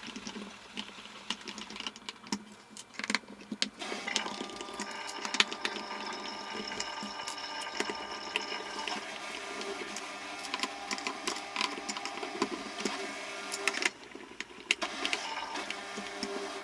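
Small electric screwdriver running, driving screws back into a plastic Bluetooth speaker casing, with clicks and knocks of the screws and handling. The motor runs steadily for several seconds, stops briefly near the end, then starts again.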